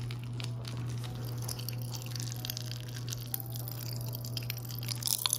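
Japanese popping candy, a Pop Rocks-style dagashi, crackling in a mouth: a rapid scatter of tiny pops and snaps that grows denser near the end.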